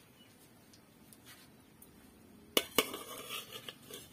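Metal cookware clanking as an aluminium pot is handled: after a quiet start, two sharp clanks about two and a half seconds in, followed by a few lighter clinks.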